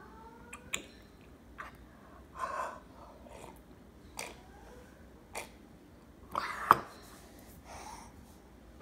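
A small child slurping milk and cereal straight from a stainless steel bowl: a few separate slurps and breaths, with light clicks of a spoon against the metal. The loudest slurp comes about two-thirds of the way through and ends in a sharp click.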